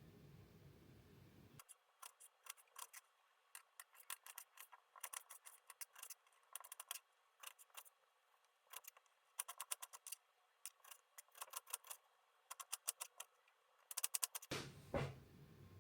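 Irregular runs of small, sharp clicks, several quick clicks at a time with short gaps between, then a louder knock and rustle near the end.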